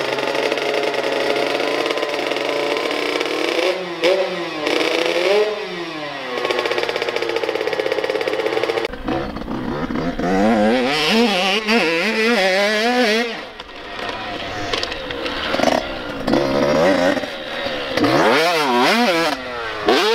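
Two-stroke dirt bike engine, first running close by with a few quick rises and falls in revs. From about nine seconds in it is revved up and down over and over as the bike is ridden over the jumps of a supercross track.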